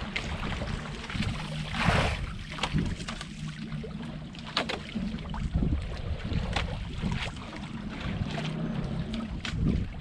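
Outrigger fishing boat's engine running steadily at low speed, with water slapping against the hull and wind on the microphone; a louder gust of noise comes about two seconds in.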